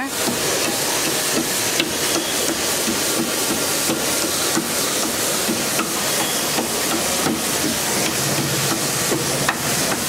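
Bike-washing pressure washer spraying a fine jet of water mixed with air onto a motorcycle: a steady, even hiss. The washer puts out little water with the air, which saves water.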